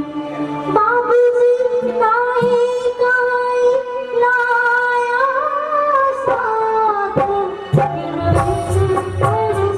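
Live devotional music: a singer holds long, slowly bending notes over instrumental accompaniment, and low drum beats come in about eight seconds in.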